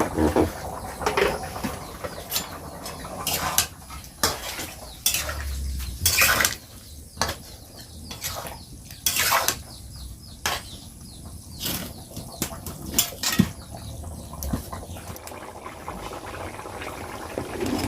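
Metal cooking pots and utensils knocking and clinking at irregular intervals, with a dozen or so sharp clinks.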